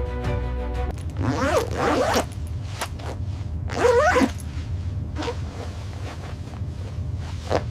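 Two long rasping strokes, each sweeping up and down in pitch, followed by a few sharp clicks over a low hum; music stops about a second in.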